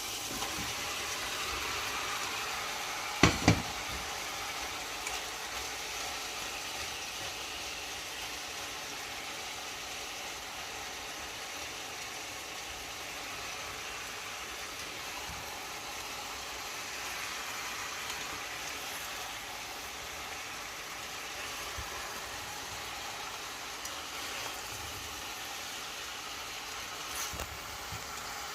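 Steady sizzling hiss of food cooking in a pot on the stove, with two sharp knocks in quick succession about three seconds in.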